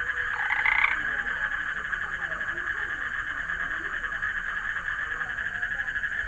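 A dense chorus of calling frogs, a steady high pulsing din, with one louder call about half a second in.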